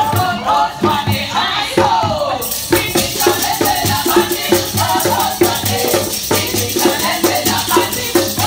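Live street music of hand drums and shakers: the drums keep a steady beat, a voice sings over them at first, and from about two and a half seconds in shakers rattle fast and bright.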